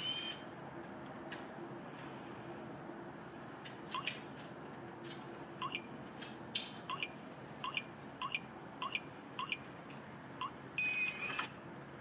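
GEONFINO G5 Pro smart deadbolt's touchscreen keypad beeping once for each key pressed as a passcode is entered: about eight short beeps, roughly one every half second to second. A longer, louder tone sounds near the end.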